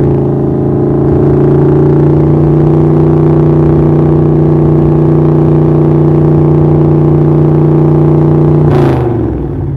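Car engine held at steady raised revs for a datalogged rev test, then the throttle is let off near the end and the revs fall away with a short sudden burst of noise.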